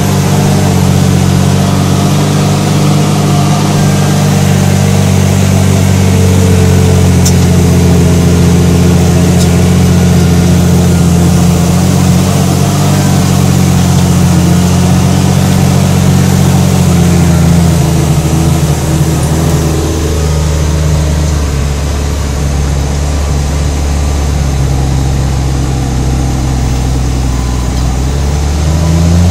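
Case IH Puma 155 tractor's six-cylinder diesel engine running under load while it pulls a mounted reversible plough through the soil, heard from inside the cab. The engine note drops lower about two-thirds in and climbs back up near the end.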